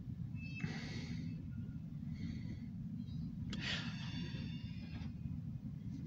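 Covered grain hopper cars of a short freight train rolling slowly past, heard from inside a car as a steady low rumble, with three brief hissing bursts, the last and loudest about three and a half seconds in.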